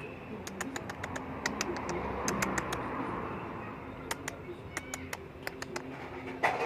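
Rapid, irregular sharp clicks and taps, with a faint bird chirp or two among them.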